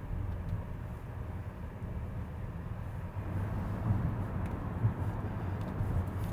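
Cabin noise of a moving electric car in traffic: a steady low road and tyre rumble, with a few faint ticks.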